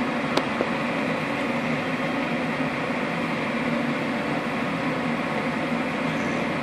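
Two-stage propane gas furnace running in low stage, a steady mechanical hum of its motor and burners, with one short click about half a second in.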